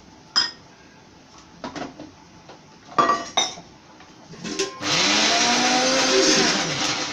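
A steel spoon clinks against an aluminium pot a few times while stirring vegetables and horse gram. About five seconds in, water is poured steadily into the pot with a loud rushing splash.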